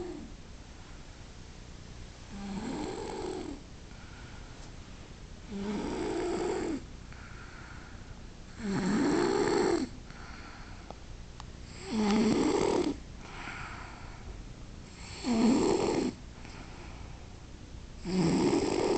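Rhythmic snoring: a loud snore about every three seconds, each lasting about a second, with a softer breath between snores. The snores get louder after the first few.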